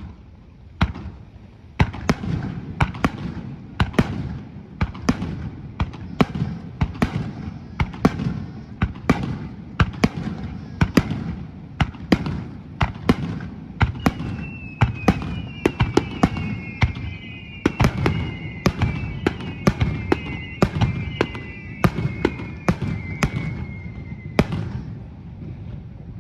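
Fireworks display bursting in quick succession, about two bangs a second over a low rumble. From about halfway through until near the end, several overlapping whistles glide down in pitch among the bangs.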